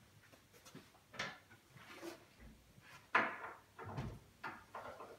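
Wooden knocks and bumps from handling a pine wardrobe and its door: several separate clunks, the loudest about three seconds in, followed by a dull thud.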